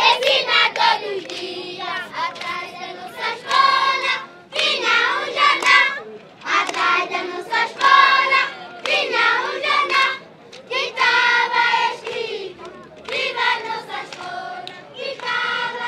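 A large group of schoolchildren singing together in unison, unaccompanied, in phrases of a second or two with short breaks between them.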